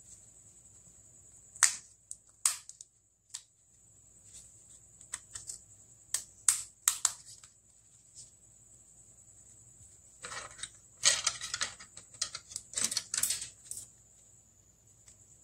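Small sharp clicks and taps of plastic and metal as a Samsung Galaxy J2 phone, its screws removed, is handled and pried open; a few scattered clicks, then a denser run of clicking and scraping about ten seconds in. A faint steady high-pitched whine runs underneath.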